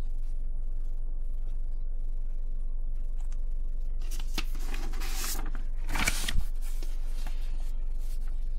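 A sheet of paper being picked up and handled: rustling about four seconds in and again, sharper, around six seconds. A steady low electrical hum runs underneath.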